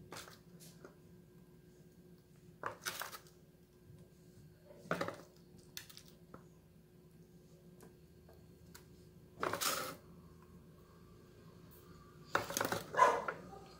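A spoon scraping and knocking against a bowl and a baking pan as creamy chicken filling is spooned onto batter: a handful of short scrapes and clinks a few seconds apart, over a faint steady hum.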